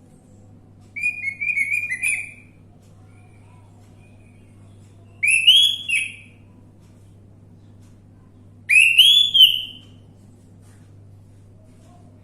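Orange-headed thrush singing: three short, loud, whistled phrases a few seconds apart, each about a second long.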